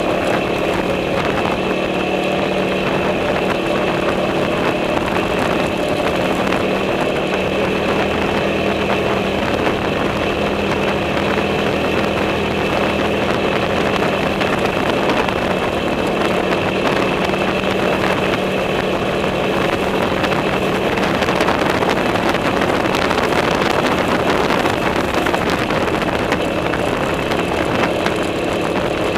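TGB Blade 550 quad bike's single-cylinder four-stroke engine running at a steady cruising speed as the quad drives along a grassy track, an even engine drone with no change in pitch.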